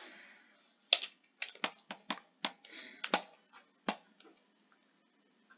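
Computer keyboard typing: an irregular run of about a dozen sharp key clacks, after a brief soft hiss at the start.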